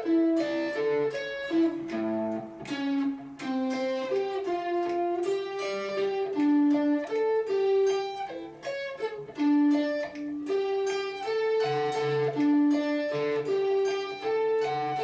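Electric guitar picking a steady run of single notes in an arpeggiated riff, each note ringing into the next.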